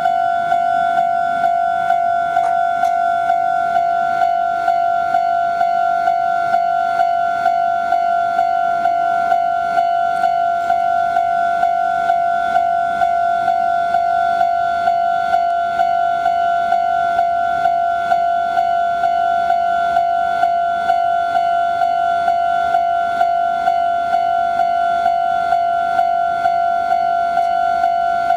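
Japanese railway level-crossing warning bell ringing, an even, unbroken run of identical electronic clangs. It is the signal that a train is approaching and the crossing is closed.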